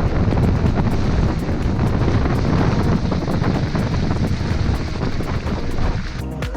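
Wind buffeting the microphone over the rumble of a vehicle driving off-road. The noise drops near the end as music comes in.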